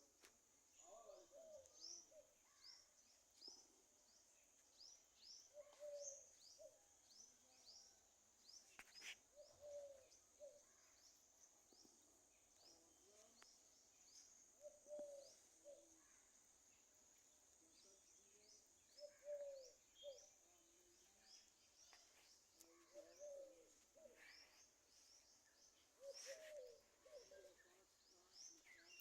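Small birds chirping in a rapid, continuous series of quick falling notes, with short lower calls mixed in, over a steady high hiss.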